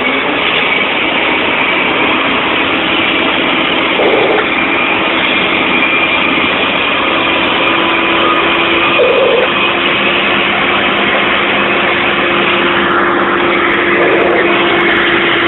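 Mack dump truck's diesel engine running steadily, heard from inside the cab, with a constant drone that settles into a steady hum partway through.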